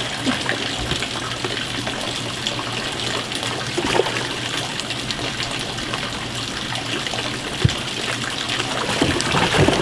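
Bass boat livewell with its pump running: water trickling and spraying into the well over a steady low hum, with a few brief splashes as hands reach into the water.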